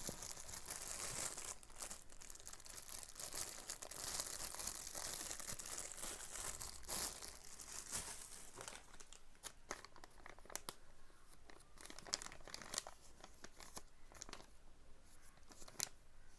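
Plastic packaging crinkling and rustling as it is handled, with many small clicks and taps; busiest in the first half, then lighter.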